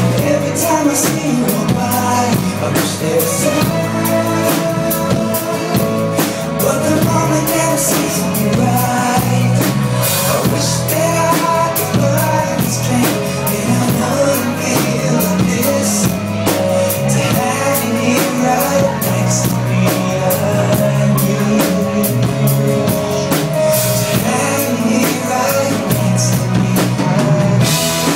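Live band playing a rock-pop song, with the drum kit keeping a steady beat under sustained bass and keyboard or guitar notes.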